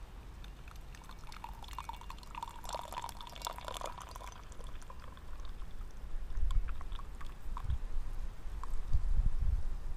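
Water poured in a thin stream into small tea vessels for about three seconds, with a few drips after. In the second half, low rumbles of wind buffeting the microphone.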